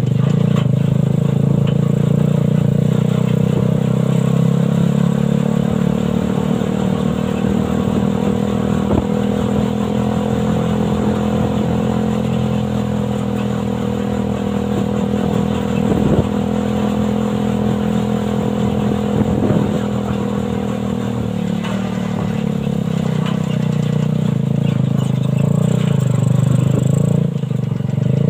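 Suzuki Satria FU 150cc single-cylinder four-stroke engine driving a homemade buggy, running steadily with its pitch shifting slowly and dropping a little about two-thirds through. A few sharp clattering knocks come from the buggy as it goes.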